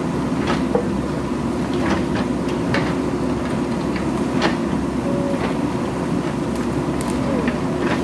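JCB backhoe loader's diesel engine running steadily under load as the backhoe arm digs, with scattered knocks and clanks of the bucket working in rock and dirt.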